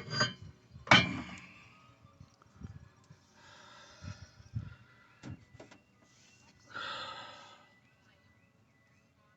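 Metal brake parts being handled: two sharp ringing metallic clinks in the first second, a few lighter knocks, and a short scraping slide about seven seconds in.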